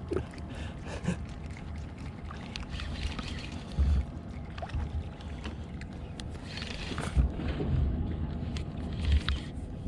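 Baitcasting reel being cranked against a hooked queenfish: scattered small clicks over a steady low rumble, broken by a few dull thumps.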